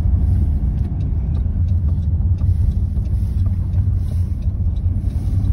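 Steady low rumble of a car's engine and road noise, heard from inside the cabin while driving at highway speed.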